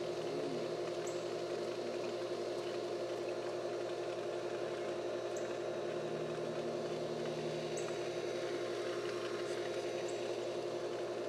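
Steady motor hum with a few fixed low tones, unchanging throughout, with a few faint short high chirps over it.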